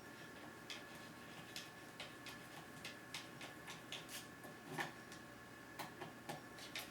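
Faint, irregular small clicks and ticks of a small screwdriver turning screws back into a Lenovo T500 laptop's plastic underside cover, with one louder knock a little before the five-second mark.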